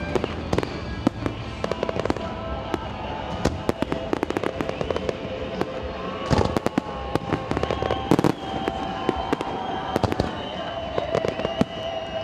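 Fireworks display: shells bursting with a rapid, irregular series of sharp bangs and crackles, heaviest in flurries about six and eight seconds in.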